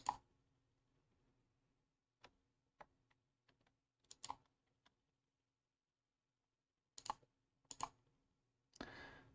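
About ten scattered, sharp computer mouse clicks on a quiet background, the first the loudest and some in quick press-and-release pairs, with a short soft rustle near the end.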